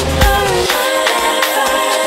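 House music from a DJ mix: a four-on-the-floor kick drum and bass hit about twice a second, then drop out about two-thirds of a second in, leaving only the higher melodic parts and hi-hat percussion.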